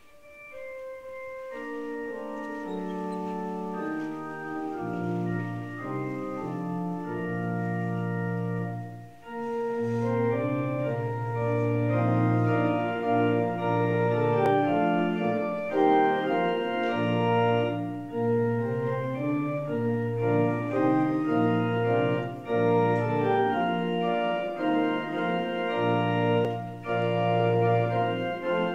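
Church organ playing slow, sustained chords. It starts softly, fills out as bass notes come in a few seconds later, breaks off briefly about nine seconds in, and then plays on fuller.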